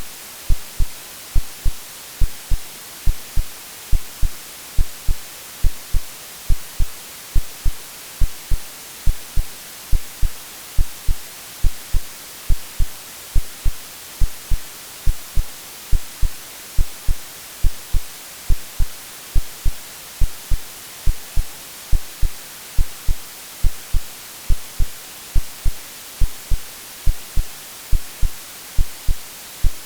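Synthetic heartbeat of low, paired lub-dub thumps at an even, steady pace, mixed with continuous white-noise hiss: a womb-like sleep sound for soothing babies.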